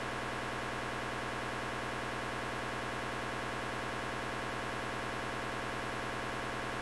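Steady, unchanging hiss of static noise.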